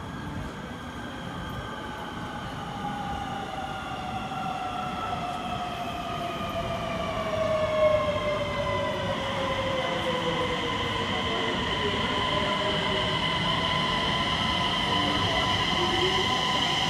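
Øresundståg electric multiple unit (ET/X31K class) arriving in an underground station. Its traction motors whine in several tones that fall steadily in pitch as it brakes, then level off to a steady hum, over a rumble that grows louder as it draws in. There is a brief louder bump about eight seconds in.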